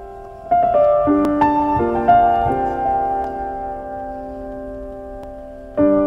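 Background piano music: a slow, gentle phrase of single notes and chords that ring and fade, starting again near the end.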